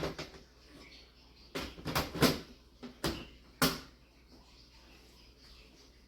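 Several sharp knocks and clunks of hard objects being handled, about six in the first four seconds, then quiet.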